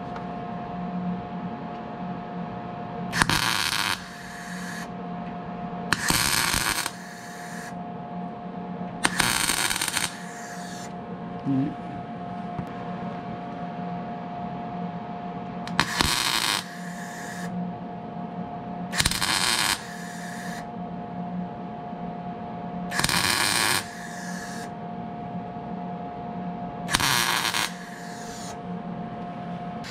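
MIG welder tack-welding a steel rocker top into place: seven short bursts of crackling buzz, each under a second long, a few seconds apart. A steady hum runs underneath.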